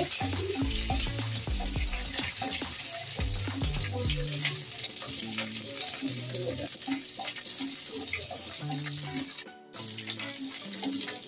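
Oil sizzling and spluttering in a kadai as a tempering of mustard seeds, curry leaves, green chillies and ginger fries, with a spatula stirring it. Background music with a slow stepped bass line plays along, and the sound drops out briefly near the end.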